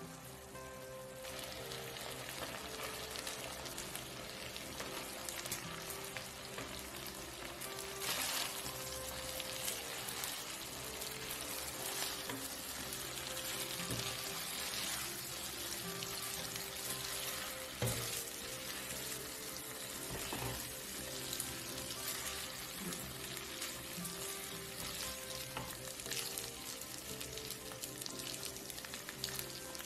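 Shrimp and spaghetti frying in butter-garlic sauce in a nonstick pan, a steady sizzle. A spatula and tongs stir and scrape in the pan now and then.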